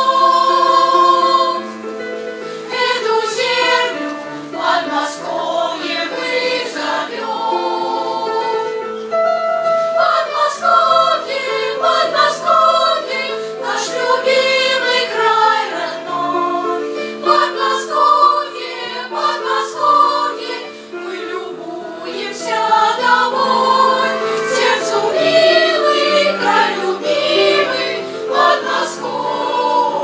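Children's choir singing a song, with a low instrumental accompaniment sustaining notes underneath.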